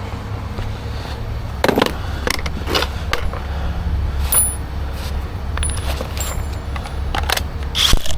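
Metal clinks and clanks, several separate knocks with brief high ringing, from tools and wheel parts being handled during a tire change, over a steady low rumble.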